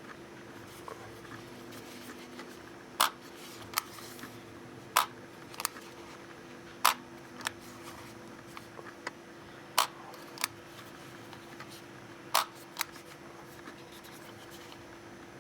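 Handling noise from unboxing a compact camera: a series of sharp clicks and snaps, mostly in pairs, every two to three seconds, over a steady low hum.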